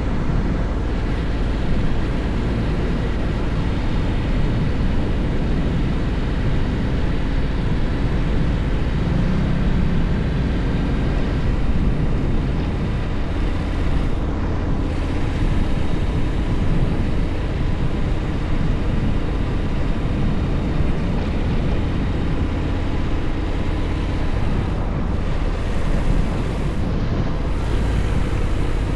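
Honda X-ADV motorcycle's 745 cc parallel-twin engine running steadily under way, mixed with heavy wind rush on the microphone.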